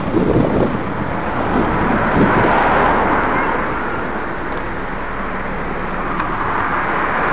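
Wind rushing over a cyclist's head-mounted camera microphone, mixed with road and car noise as the bike rides alongside traffic.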